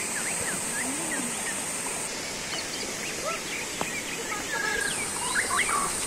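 Water running and splashing over small stone cascades into pools, a steady rush, with scattered short bird chirps over it. A steady high-pitched whine breaks off about two seconds in and comes back near the end.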